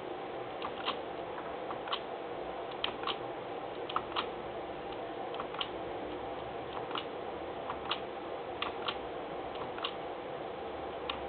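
Faint, irregularly spaced small clicks over a steady background hiss and hum.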